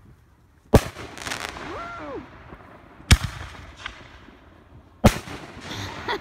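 Consumer fireworks going off: three sharp bangs about two seconds apart, each trailed by a short hissing, crackling tail.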